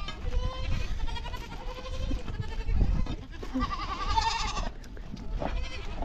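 Goats bleating: one loud, quavering bleat about four seconds in, with fainter calls before it. Low rumbling thumps run underneath.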